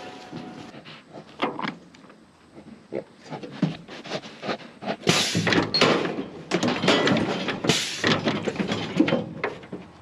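Sheep pushing along a steel-mesh race and into a galvanised sheep handling crate: a run of knocks, clanks and rattles from the steel panels and gates. Louder clatters come about five and eight seconds in.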